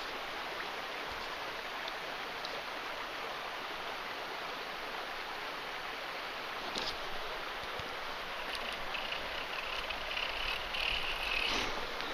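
Small stream's water running steadily over the shallows, a little louder near the end.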